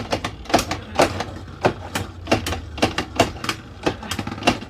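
Beyblade Burst spinning tops clashing in a plastic battle stadium: a rapid, irregular run of sharp plastic clacks as the tops hit each other and the stadium walls.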